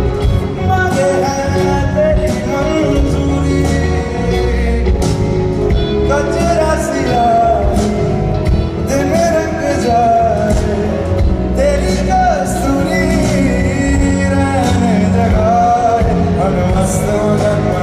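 Live band music: electric and acoustic guitars with drums, under a bending melody line that may be sung.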